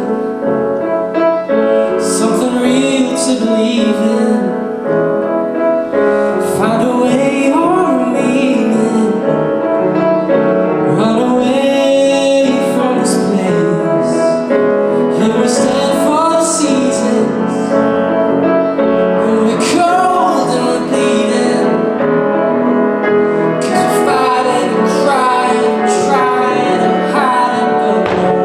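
Pop song with an orchestral cinematic arrangement: a female voice singing a melody over piano accompaniment.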